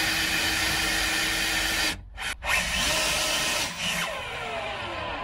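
Cordless drill-driver running in bursts as it drives screws into the wooden frame of a loft ladder's casing. It stops briefly about two seconds in, then runs again, its pitch falling and the level dropping near the end.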